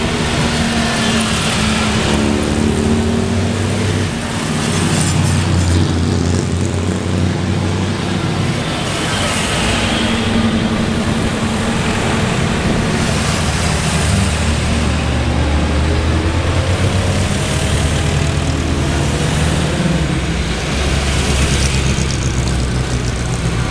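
Vintage car engines running as the cars drive slowly past one after another, a steady engine noise that rises and falls in pitch as each car comes and goes.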